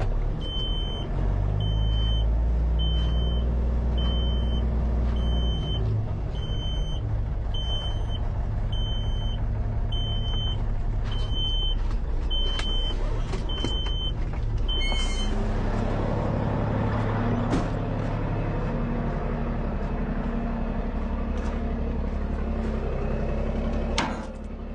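Excavator's diesel engine running under load while its travel alarm beeps steadily, about once a second. The beeping stops about fifteen seconds in and the engine keeps running.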